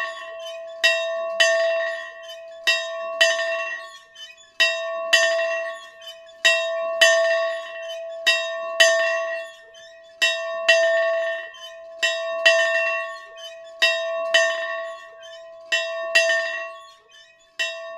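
A single bell rung over and over at one steady pitch, each strike ringing on. The strikes come mostly in pairs about half a second apart, with a new pair about every two seconds, as from a swinging bell whose clapper hits both sides.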